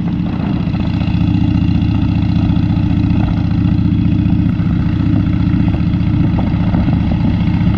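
Harley-Davidson Dyna Wide Glide's V-twin running steadily under way, with a low, rumbly exhaust note. The exhaust has just been resealed with new gaskets.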